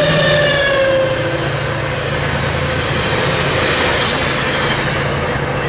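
Diesel-hauled Coaster commuter train passing: the locomotive's pitched engine tone falls slightly and fades in the first second as it goes by. After that come the steady noise of the bilevel coaches' wheels on the rails and a constant low hum.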